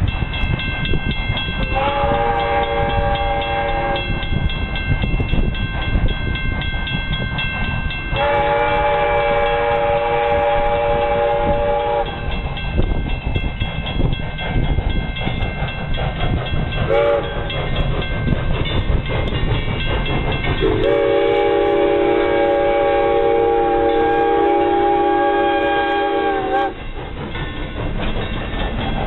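1890s steam locomotive's whistle blowing the grade-crossing signal, long, long, short, long, the last blast held about six seconds, over the steady low rumble of the locomotive working and its coaches rolling by.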